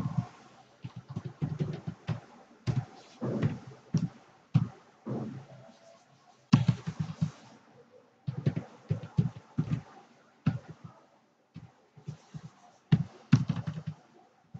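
Computer keyboard being typed on, irregular runs of key clicks and thuds with short pauses between them.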